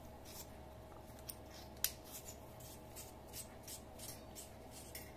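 Faint clicks and scraping of a Streamlight Stylus Pro penlight being screwed shut by hand, its threaded body turning, with one sharper click about two seconds in.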